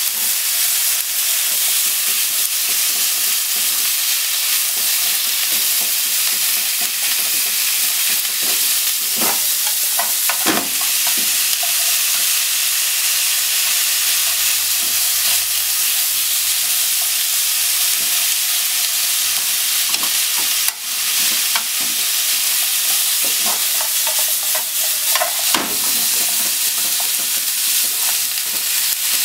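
Sliced pork and onion sizzling steadily in a hot frying pan, with short taps and scrapes of a wooden utensil stirring them against the pan, a few near the middle and more in the last third.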